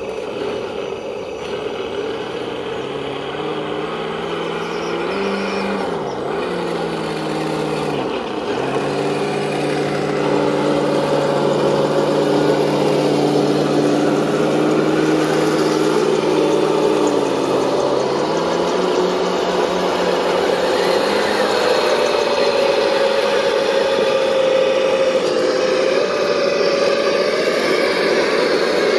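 Scale RC crawler trucks' electric motors and geartrains running as they drive through mud and water. The pitch dips briefly twice early on, holds steady, then steps up and climbs higher near the end as the throttle changes.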